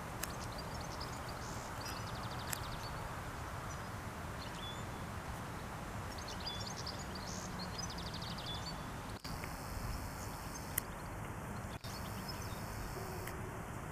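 Outdoor waterside ambience: a steady low rumble, with small birds chirping and giving short rapid trills at intervals during the first half. The sound cuts out very briefly twice in the second half.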